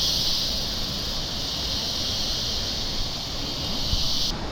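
Steady high-pitched drone of rainforest insects over low rumbling outdoor noise, cutting off abruptly near the end.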